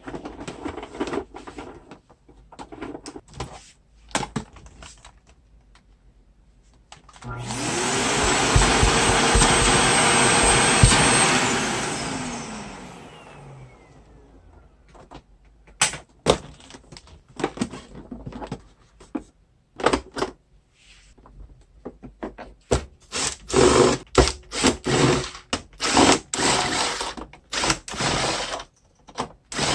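Samsung VC-B935Z vacuum cleaner switched on about seven seconds in. Its motor spins up quickly, runs for about five seconds, then winds down. Scattered clicks and knocks of handling come before it, and frequent ones follow.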